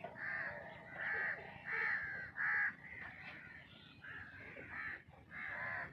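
Crows cawing over and over: a string of short, harsh caws, about eight in quick succession.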